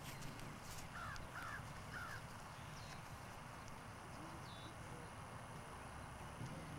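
A crow caws three times in quick succession about a second in, over steady low background noise.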